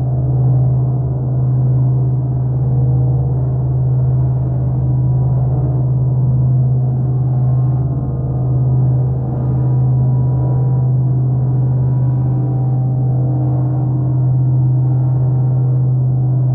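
Modular synthesizer drone, built from a TipTop Audio Z3000mk2 oscillator, Make Noise Wogglebug and Maths and a Doepfer A-188-1 bucket-brigade delay. It holds one steady low tone with many ringing overtones above it, gently swelling and ebbing every second or two.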